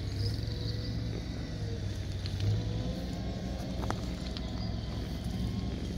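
Steady low vehicle rumble, with a few faint short clicks.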